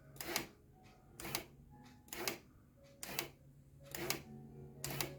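Home-made motor-driven model railway point motor being tested after its linkage was cleaned with abrasive paper: a sharp mechanical click about once a second over a steady low hum.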